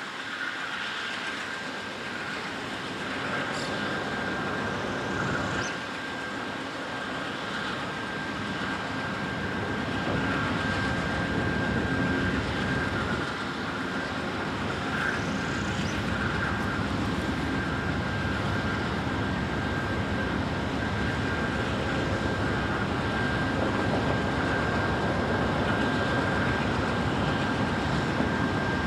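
Two Amtrak GE Genesis P42DC diesel locomotives idling at a station stop, a steady engine rumble with a steady high whine running through it, growing louder over the first ten seconds.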